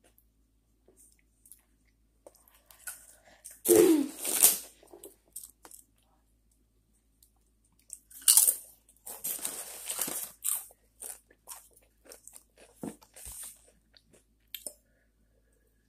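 Close-up crunching and chewing of tortilla chips, with the loudest crunchy bites about four seconds in and again around eight to ten seconds, and small mouth clicks in between.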